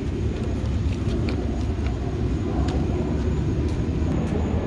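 Steady low outdoor rumble with a few faint clicks, and no speech.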